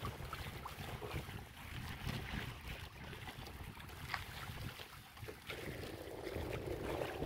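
Wind buffeting the microphone over water splashing and lapping against the hull of a moving sailing outrigger boat. A denser rush of water comes in about five and a half seconds in.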